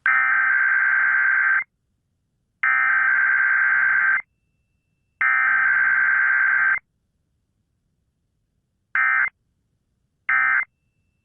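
Emergency Alert System SAME data tones for a Required Weekly Test: three long, raspy, buzzing header bursts about a second apart, then two short end-of-message bursts near the end.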